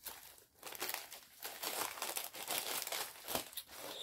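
Crinkling and rustling as a diamond painting canvas and its packaging are handled and folded, a run of quick, irregular crackles.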